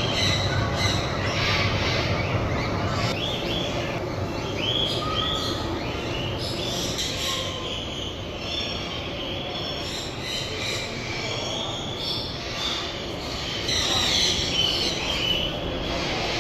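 Many birds calling at once in an indoor aviary: a stream of short, shrill chirps and squeals over a steady low din.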